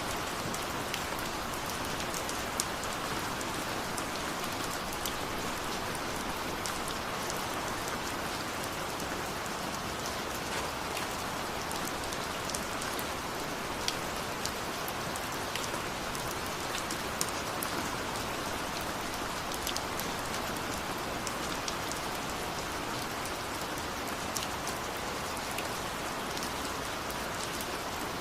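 Steady rain falling, an even hiss with many individual drops ticking sharply on a hard surface.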